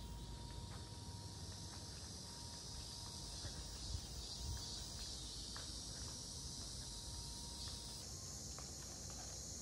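Cicadas singing: a steady, high-pitched buzzing chorus that carries on without a break.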